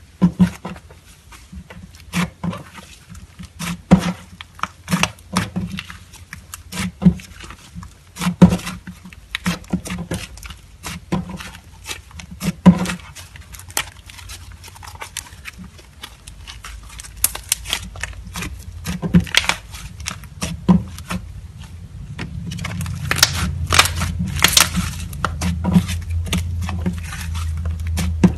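Slime being kneaded and squished by hand as clay is mixed into it, making irregular sticky pops and clicks. From about two-thirds of the way in, the squishing becomes denser and more continuous, with rapid crackling.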